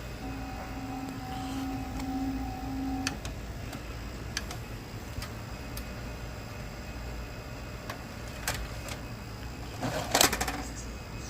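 Symphonic TV/VCR combo's tape mechanism at work: a steady motor whine for about three seconds, then scattered clicks and a louder clatter near the end.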